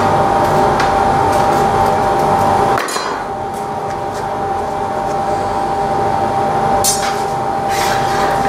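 Steady roar and hum of a glassblowing workshop, which drops a little about three seconds in. Near the end come a couple of sharp metallic clinks of glassblowing tools against the iron and glass.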